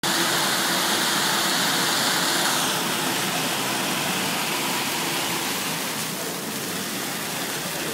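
Splash-pad fountain's ground-level water jets spraying up and splashing back onto the paved basin: a steady rushing hiss of water that eases slightly about three seconds in.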